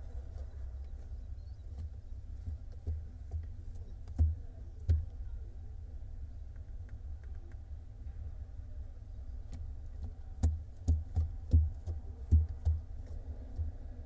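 Steady low rumble inside a wooden barn owl nest box, with scattered knocks and thumps against the wood, twice about four to five seconds in and a quick run of them about ten to thirteen seconds in.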